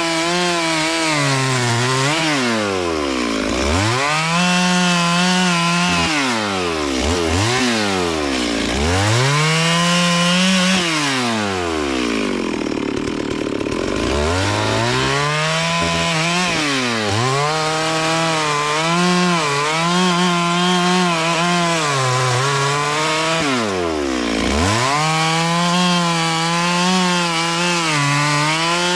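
Two-stroke chainsaw running at high revs while cutting wood, its pitch dropping away and climbing back up several times as the throttle is let off and squeezed again. Near the middle it runs slower for a couple of seconds before revving up again.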